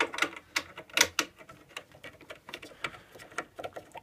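Irregular clicks and light knocks, the loudest about a second in, from a knob being fitted and turned onto a threaded stud on a wooden keyboard stand's K-brace.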